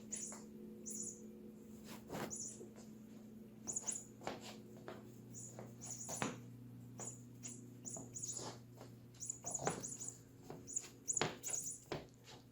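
Cat toy mouse squeaking in short high chirps, again and again at irregular intervals, with scattered light knocks and taps as it is batted about. A low steady hum runs underneath.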